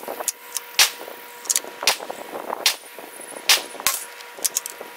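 Gunfire at an outdoor shooting range: irregular sharp cracks, about ten in five seconds, over a faint steady hum.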